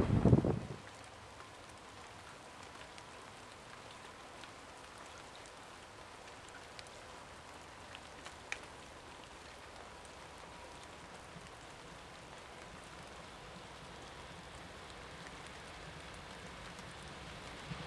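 The loud rush of a 475 series electric train passing close by cuts off within the first second. A steady faint hiss follows, and the low rumble of an approaching 683 series electric train slowly grows over the last few seconds.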